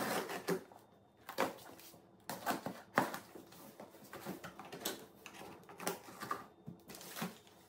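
Cardboard box being cut open along its taped seam and its flaps pulled back: a run of irregular scrapes, rips and cardboard rustles.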